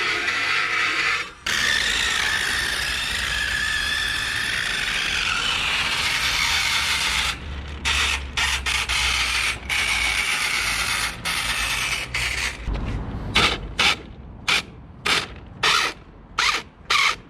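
Cheap 1:10 four-wheel-drive RC drift car's single electric motor and gear drivetrain whining, its pitch rising and falling with the throttle, with a ratcheting gear clatter. After about seven seconds it runs in stop-start blips, ending in short bursts about twice a second. The gear noise is the sign of a drivetrain fault that the owner takes for the car having broken; he later traces it to loose screws in the gearbox housing.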